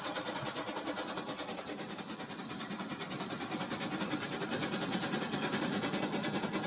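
Battery-powered Rail King toy trains running on plastic track, a steady small-motor whirr with a fast, even clicking rattle of the cars rolling over the track.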